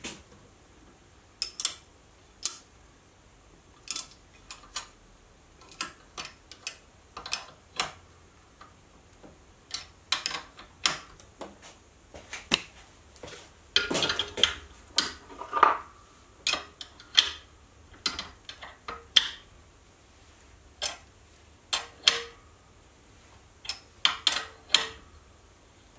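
Irregular sharp metallic clicks and clinks of a steel socket and ratcheting spanner being fitted and worked on the nut of a shop-made rivnut setting tool, turning the nut to draw up the stud and collapse the rivnut in sheet metal. The clicks come singly and in short clusters, busiest in the middle, where one clink rings briefly.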